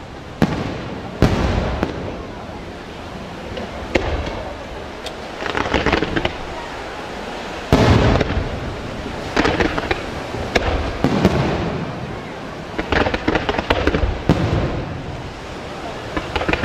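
Fireworks display: aerial shells bursting with sharp bangs every second or few, with stretches of dense crackling in between.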